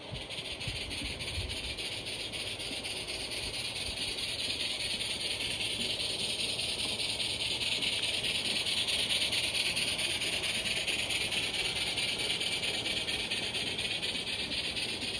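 Steam hissing from an Accucraft K-27 live steam model locomotive, a steady hiss that grows louder over the first half and eases slightly toward the end.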